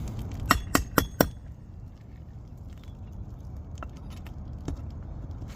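An old, brittle asphalt roof shingle cracking and coming loose as it is lifted: four sharp clicks in under a second, then a couple of faint ticks. It fails the repairability test, falling out at once instead of bending.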